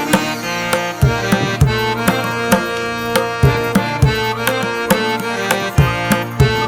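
Background music: a melodic instrument over a regular percussion beat.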